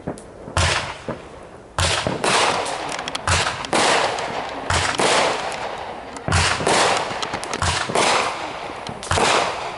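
Aerial fireworks going off in quick succession: about a dozen sharp bangs, roughly one a second, some with a deep thud, with bursts of crackling between them.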